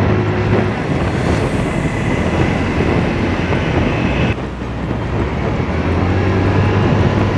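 TVS Jupiter 125 scooter's single-cylinder engine running under acceleration while riding, with a steady rush of wind and road noise and a brief dip about four and a half seconds in. The owner feels its pickup has dropped, which he puts down to the factory-fill engine oil being due for its first change.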